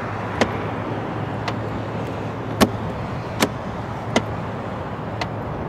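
A steady low hum from the Jaguar XJR's supercharged V8 idling, with about six sharp clicks from the door handle and latch as the door is pushed to and the soft-close mechanism draws it shut against the frame.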